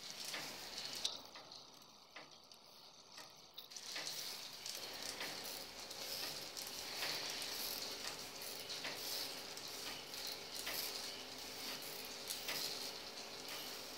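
A plastic K'NEX model of an octopus fairground ride running with its arms spinning: a steady whirring hiss with irregular clicks and ticks from the plastic parts, louder from about four seconds in.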